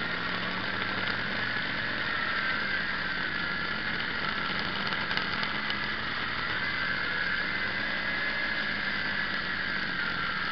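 Small quadcopter's electric motors and propellers running, picked up by the camera on board: a steady high whine that wavers in pitch as the throttle changes.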